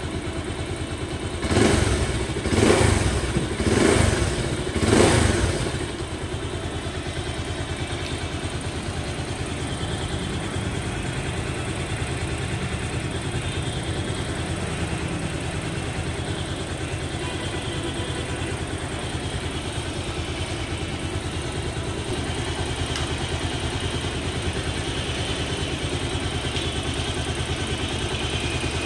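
Bajaj Pulsar 220F's single-cylinder engine idling, blipped four times in quick succession over a few seconds, then settling back to a steady idle.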